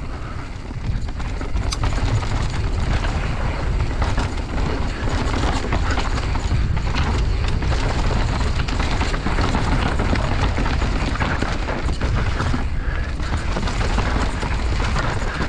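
Mountain bike descending a loose dirt trail: a steady rumble of wind buffeting the microphone over the crunch of tyres on loose ground and the rattling chatter of the bike.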